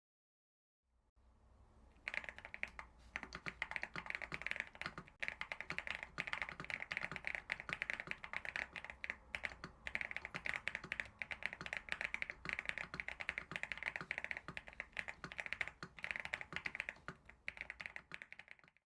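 Typing on a mechanical keyboard fitted with Akko Creamy Purple U1 tactile switches: rapid key clicks in fast bursts with brief pauses, starting about two seconds in.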